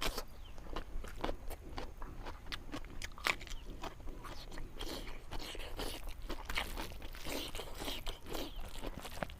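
A person eating close to the microphone: chewing a fish curry meal with irregular crunches and short mouth clicks.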